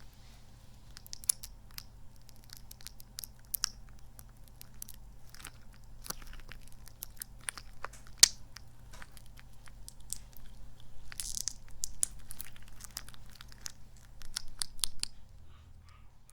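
A sticky, squishy kidney-bean toy squeezed and kneaded close to the microphone, giving irregular sticky crackles and squelches. There is a sharp click about 8 seconds in and denser bursts about 11 seconds in and near the end.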